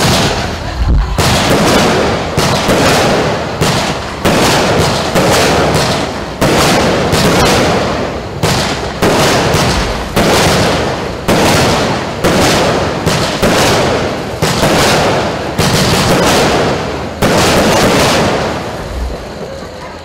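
Lesli Essentials 'Greyhound' 16-shot Pyromould blinker cake firing: loud shots follow one another about once a second, each with a lingering tail. The shots die away near the end.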